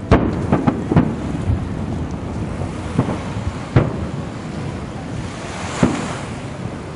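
Aerial firework shells bursting: about six booms at uneven intervals, over a steady background hiss.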